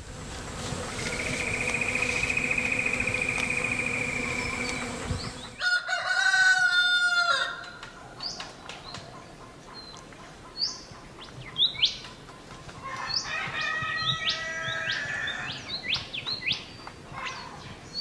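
A steady drone with a high, wavering tone for about five seconds. Then a rooster crows once, for about two seconds, followed by scattered short chirps of small birds and more fowl calls.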